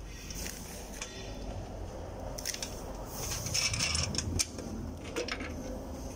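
Rustling and a few light clicks of hands handling the e-bike's parts and wiring harness, heaviest about three to four and a half seconds in, over a low steady hum.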